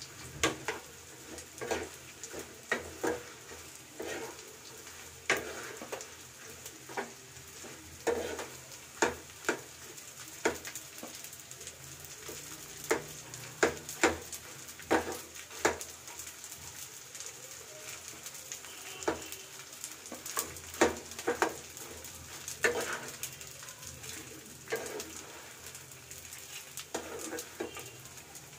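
A steel spatula stirring and scraping in a kadhai, with irregular sharp clinks against the pan about once a second, over a faint steady sizzle of food frying in ghee.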